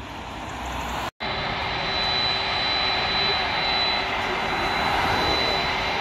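Jet airliner engine noise growing louder, broken off about a second in; then a nearby twin-engine jet airliner taxiing, its engines running steadily with a high-pitched whine over the noise.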